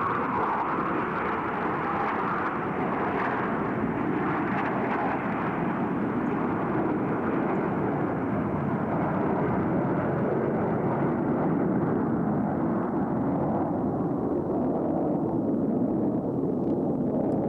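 Jet engine noise from Blue Angels F/A-18 Hornets heard at a distance across open water: a steady, rumbling roar that turns duller toward the end as its higher part fades.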